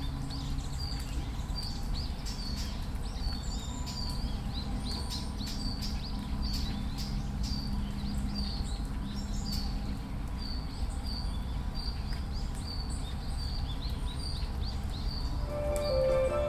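A bird calling over and over in short high chirps, about three every two seconds, over a steady low outdoor rumble. Music comes in near the end.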